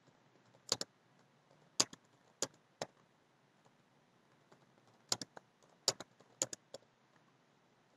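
Computer keyboard keystrokes as a SQL query is typed: sharp, isolated key clicks, four spread over the first three seconds, then a quicker cluster of about ten around five to seven seconds in.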